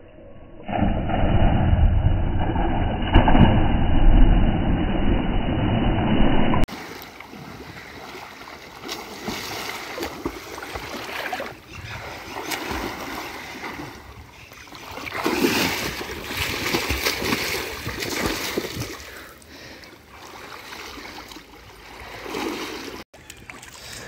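Loud splashing as a man dives into an irrigation canal, then quieter, uneven splashing of a swimmer's arm strokes in the water.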